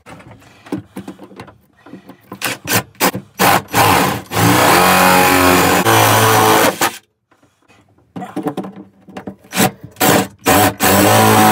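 Cordless drill boring two holes through wood. Each hole starts with short stop-start bursts on the trigger and then a few seconds of steady drilling. After a brief pause near the middle, the second hole goes the same way, its steady run beginning near the end.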